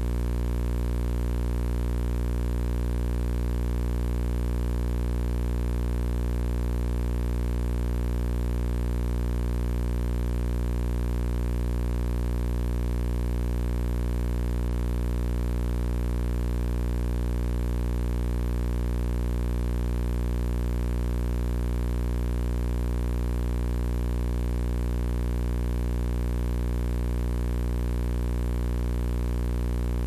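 Steady low electrical mains hum with a buzzy series of overtones, unchanging, with no music over it.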